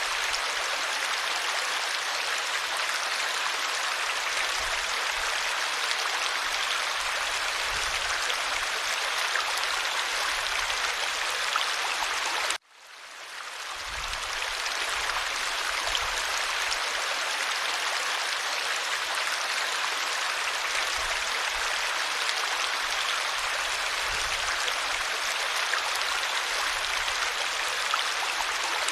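Stream water flowing over stones, a steady rushing and babbling. About halfway through it cuts out abruptly and fades back in over a second or two.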